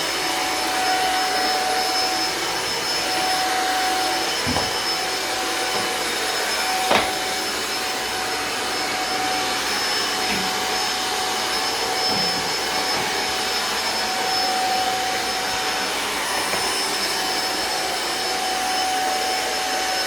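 Vacuum cleaner running steadily, its motor noise carrying a steady whine. A sharp knock about a third of the way through.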